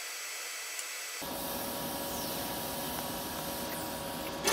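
Steady hiss of a DC TIG welding arc from a BlueArc 200STI inverter welder, pulse off, with faint steady high tones over it. About a second in the hiss changes to a fuller, rougher noise, and a short knock comes near the end.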